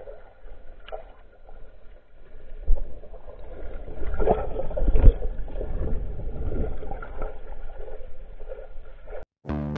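Muffled water churning and sloshing around an underwater camera beneath a moving kayak, a low rumble with a few dull knocks that builds from about two and a half seconds in. It cuts off suddenly just before the end, where guitar music starts.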